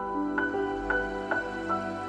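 Gentle new-age background music: a slow melody of single struck notes, about two a second, ringing over held lower chords.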